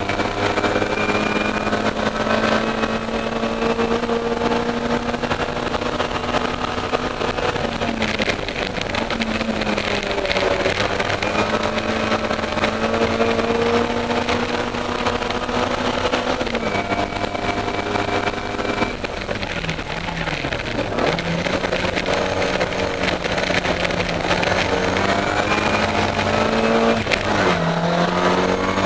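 Austin Mini Cooper racing car's four-cylinder engine running hard, heard from inside the cabin. Its pitch climbs slowly and drops sharply several times at gear changes. About two-thirds of the way through, the pitch falls for a longer stretch as the car slows, then climbs again.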